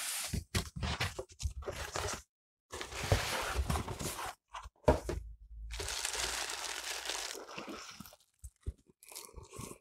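Cardboard packaging being handled as a telescope box is unpacked: a run of short scrapes and knocks from the flaps and insert, then longer stretches of rustling and crinkling as packing and plastic wrapping are pulled out.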